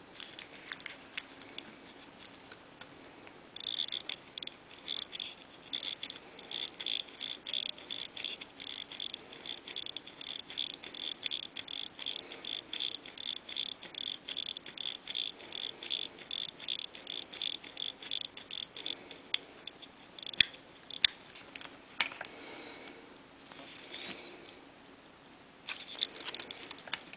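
Pre-1920 Zenith alarm watch's alarm going off: its hammer strikes in a rapid, even run with a bright metallic ring for about fifteen seconds, then stops. A few single clicks follow, and the alarm sounds again briefly near the end.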